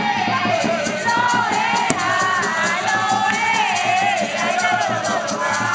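Afro-Venezuelan San Juan festival music: several voices singing together over fast, continuous drumming, with the noise of a packed crowd.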